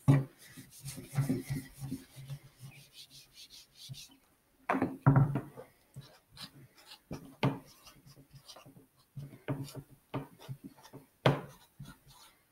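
Dry-erase marker writing on a small handheld whiteboard: short irregular scratchy strokes, with a few louder knocks against the board, about five seconds in and again near the end.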